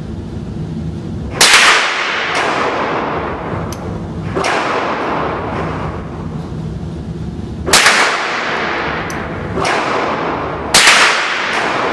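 Marlin 795 semi-automatic .22 LR rifle shots: three loud, sharp cracks about a second and a half, eight and eleven seconds in, each ringing out in an echo. Softer shots from other guns fall in between.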